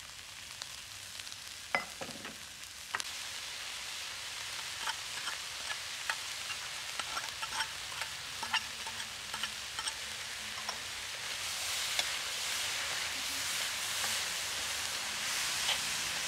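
Corn kernels sizzling in a hot metal wok, with a metal spatula clicking and scraping against the pan as they are stirred. There is a ringing metal clink about two seconds in, and the sizzle grows louder in the last few seconds.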